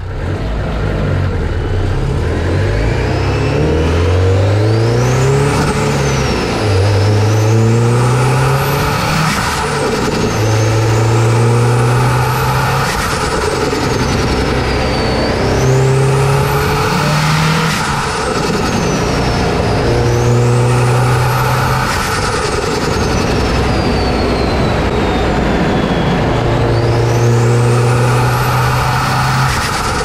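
Turbocharged Subaru STI flat-four running through a Cobb cat-back exhaust under repeated throttle pulls, the engine note climbing and holding. Over it a high turbo whine climbs and then falls away when the throttle is lifted, about six times.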